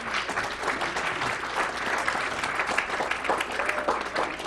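Audience applauding: a dense, steady run of many hands clapping.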